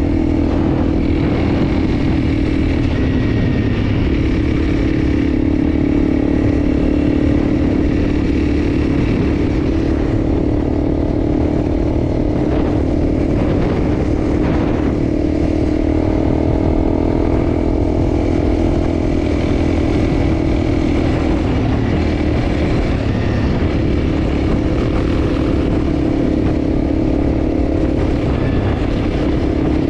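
Enduro motorcycle engine running steadily under way, its pitch drifting a little with the throttle.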